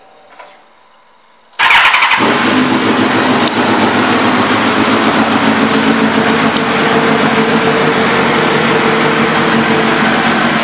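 2002 Suzuki GSX-R1000's inline four-cylinder engine starting about a second and a half in, catching at once and then running steadily at idle.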